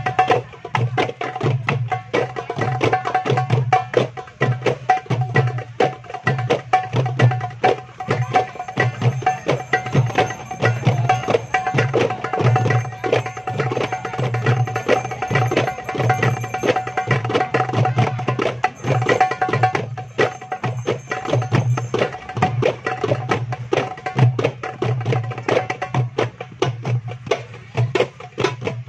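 Several darbukas (goblet drums) played together in a fast, continuous jam: deep low strokes pulsing under a dense run of sharp, crisp finger strokes, with a steady ring from the drumheads.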